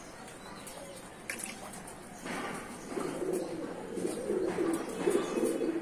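Domestic pigeons cooing in their cages: low, pulsing coos that start about two seconds in and grow louder.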